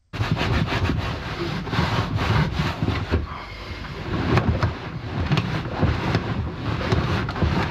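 Close rubbing and rustling with many small knocks as leather grease is worked into a leather car seat by hand.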